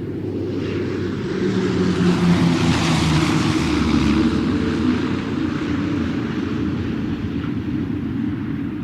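Airplane engine droning in flight, swelling to its loudest two to four seconds in and then slowly fading, as of a plane passing by.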